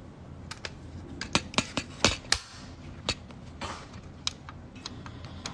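A series of sharp, irregular clicks, about a dozen, the loudest ones between one and two and a half seconds in.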